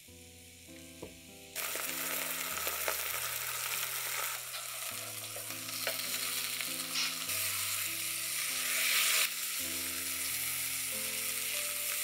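Zucchini strips frying in hot oil in a nonstick grill pan: steady sizzling that grows louder about a second and a half in. Soft background music plays underneath.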